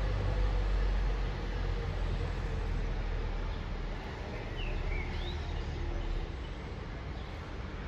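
Low rumble of road traffic that eases off about a second in and again near six seconds, with a few short bird chirps about halfway through.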